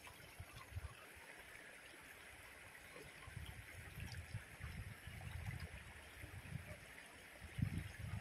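Faint steady rush of a shallow river running over rocks, with an irregular low rumble coming and going in the second half.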